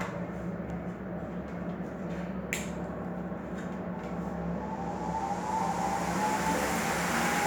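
Ventisol New wall fan running: a steady motor hum under rushing air that grows louder over the last few seconds as the oscillating fan sweeps around, with a single click about two and a half seconds in.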